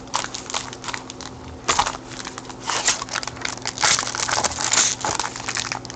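Foil wrapper of a trading-card pack crinkling and crackling in irregular bursts as gloved hands work it open.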